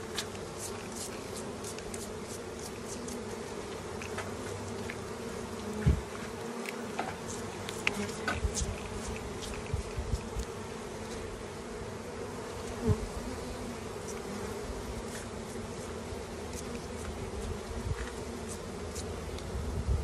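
Honeybees of an opened hive colony buzzing in a steady, dense hum. A few knocks and clicks break in, the loudest about six and thirteen seconds in.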